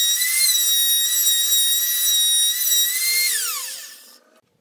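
Wood router mounted under a homemade router table running at full speed with a high, steady whine as a plywood panel is fed past the bit to cut a rabbet. A little over three seconds in it is switched off and the whine falls in pitch and fades as the motor spins down.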